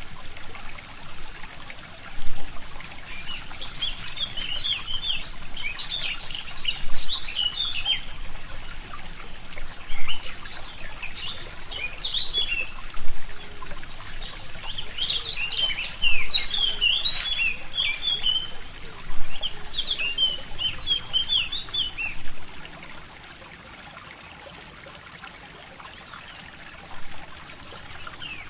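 Forest stream trickling, with a songbird singing quick warbling phrases in four bouts. About 22 seconds in, the water sound drops much quieter.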